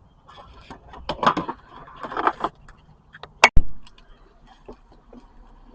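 Handling noise of keys jangling and scattered light clicks, with one sharp click about three and a half seconds in.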